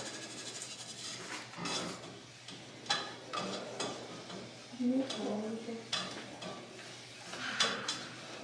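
A utensil stirring caramel ingredients in a metal saucepan, with scattered clinks and scrapes against the pan, about one every second or so.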